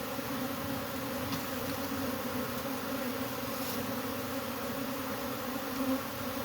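A disturbed honeybee colony buzzing, a steady dense hum of many bees at once. The bees are agitated by having their brood comb pulled out, and the buzzing is their defensive warning.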